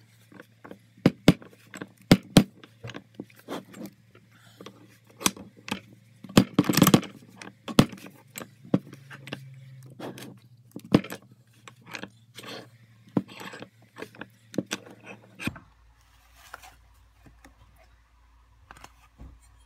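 Irregular sharp clicks and knocks with brief scrapes, from a hole saw in a hand press being worked down onto a sheet of leather and the metal cutter being handled. The clicks come thickest about a third of the way in.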